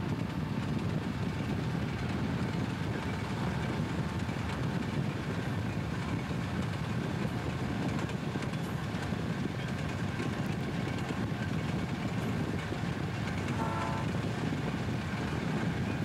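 A Southern Pacific diesel locomotive moving along the track, heard from a vehicle pacing it on the road: a steady, deep rumble of engine and running noise. A short higher tone sounds briefly a couple of seconds before the end.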